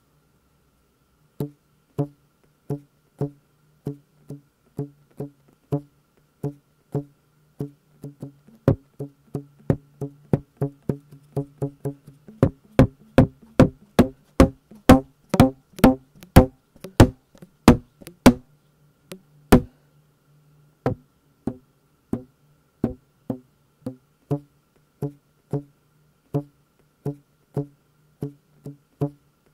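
Homemade percussion track: evenly spaced wooden knocks or taps, like a wood block, at about one and a half a second over a low steady hum. The beat doubles up and grows louder in the middle, drops out briefly about two-thirds of the way through, then resumes at the slower pace.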